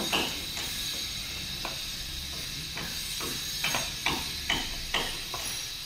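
Light, irregular knocks and taps, about a dozen spread over a few seconds, of a hand tool striking a pipe fitting during plumbing work, over a steady hiss.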